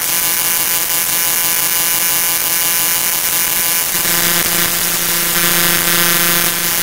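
Aviat Husky's piston engine and propeller droning steadily, heard from inside the cockpit, with a shift in its tone about four seconds in.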